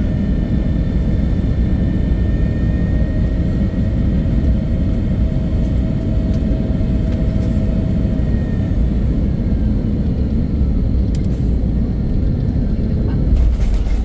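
Jet airliner landing: a steady low rumble with a thin engine whine over it that fades out about eight or nine seconds in, and a couple of clicks near the end.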